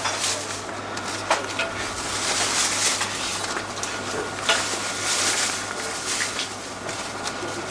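Thin plastic carrier bag rustling and crinkling as foam takeaway boxes are packed into it, with a couple of sharp knocks from the boxes.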